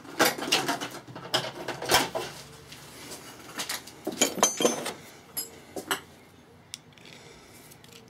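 Metal hand tools clinking and clattering as long-nose pliers are picked out and handled: rattles through the first two seconds, more around four to six seconds in, then a single click.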